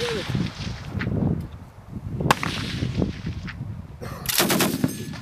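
DShK 12.7 mm heavy machine gun firing: a faint shot about a second in, a single loud shot a little past two seconds, and a short burst of several rapid shots near the end.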